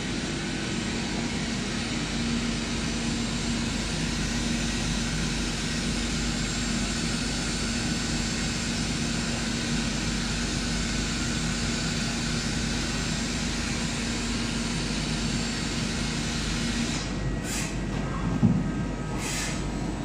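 CNC lathe machining a part behind its closed door, with coolant spraying against the window: a steady running noise with a held tone. The tone stops about three seconds before the end, followed by a few clicks and one loud knock.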